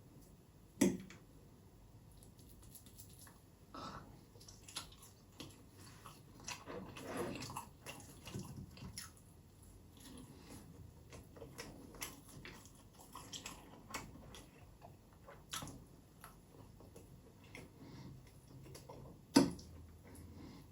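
Close-miked chewing and biting: small wet mouth clicks and soft crunches at an uneven pace, with two sharp knocks, one about a second in and one near the end.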